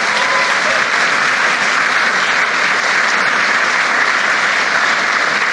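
An audience applauding, steady clapping from a roomful of people.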